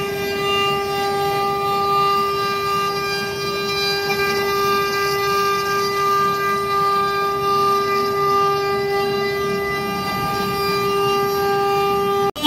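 CNC router spindle running at high speed with a steady whine while its bit carves a wooden baluster turning on the machine's rotary axis.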